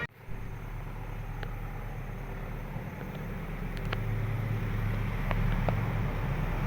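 Low, steady engine rumble that grows louder about four seconds in, with a few faint clicks.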